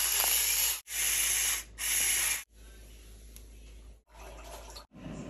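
Salt or pepper grinder grinding seasoning, a gritty hissing rasp in three short bursts within the first two and a half seconds, each cut off sharply; much quieter after that.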